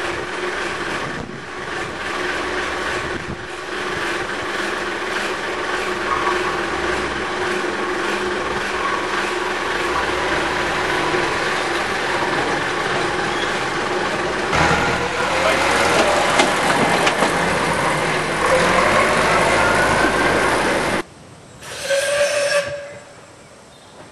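Two-foot narrow-gauge train running, a steady noisy rumble with a few steady tones and some rising tones in the second half. It cuts off abruptly, and a short, single whistle blast sounds near the end.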